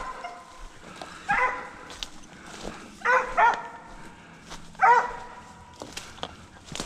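Deer hound barking, about five loud barks a second or two apart, two of them close together, some trailing off into a longer drawn-out note.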